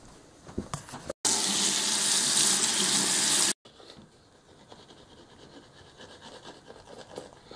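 Bathroom sink tap running, a steady rush of water into the basin for a little over two seconds that starts and stops abruptly, followed by faint small handling sounds.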